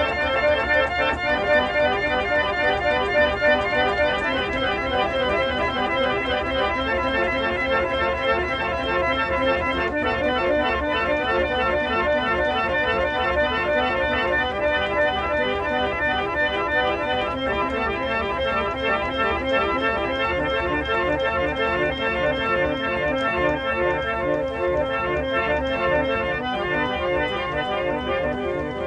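An 1865 J. Estey & Co reed organ playing sustained chords that change every few seconds.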